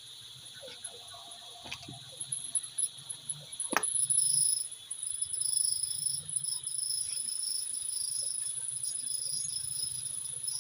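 Small clicks and rattles of a plastic chest-mount phone holder and its metal clip being handled and fitted together, with a sharp click about four seconds in. Insects chirr steadily and high-pitched behind it.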